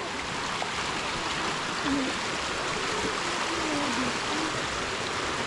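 River water flowing steadily in a continuous rushing hiss. A faint, distant voice is heard a couple of seconds in.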